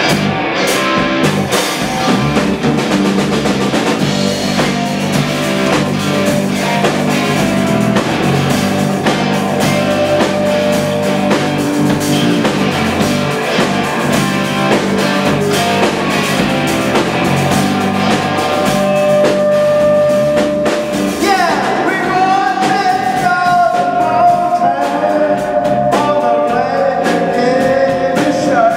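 Live rock band playing: electric guitars, bass guitar and a drum kit with singing. A clear lead melody line stands out over the band in the last third.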